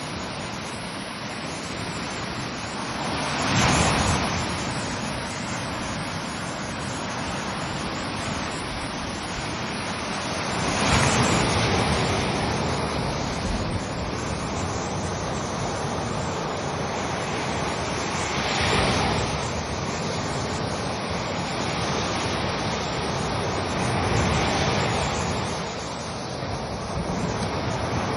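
Ocean waves breaking on a shore, a steady wash of surf with a louder wave crashing about every seven seconds, four times.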